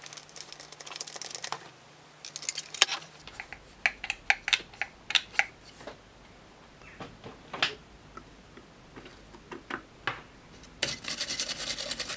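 A cloth rubbing over the plastic bin and cyclone housing of a Dyson DC62 vacuum, then a run of sharp clicks and taps as the plastic parts are handled. Near the end a toothbrush scrubs briskly over the part's electrical contacts.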